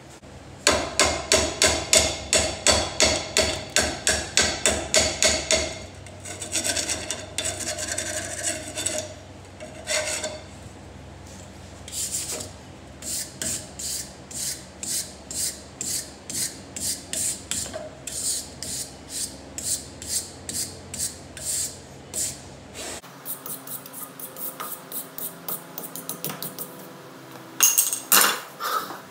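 Hand wire brush scrubbing rust off the steel of a truck's front suspension and frame, in hard back-and-forth strokes of about three a second at first, then slower and lighter at about two a second. Near the end, two short hisses of an aerosol spray-paint can.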